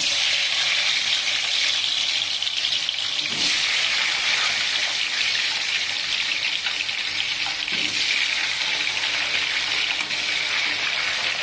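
Potato cubes in hot cooking oil in a wok, set off all at once into a loud, steady deep-frying sizzle.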